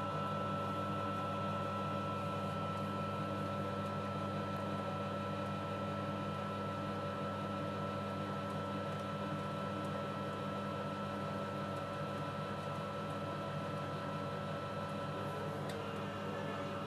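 Zanussi washing machine running with a steady, even hum and a few held tones over a low drone.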